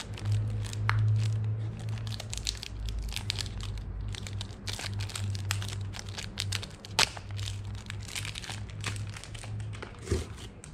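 Small cardboard fragrance box being opened by hand: its paperboard flaps and packaging crinkle and crackle in many short clicks, with one sharp click about seven seconds in and a dull knock near the end.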